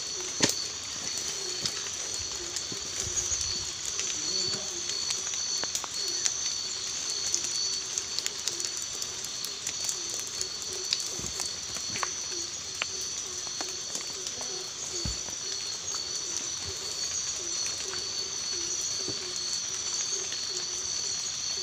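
Tropical forest ambience: a steady high-pitched insect drone on two close pitches, a low cooing call repeated again and again, and scattered clicks and rustles of footsteps and hands on rock and leaf litter during a steep climb.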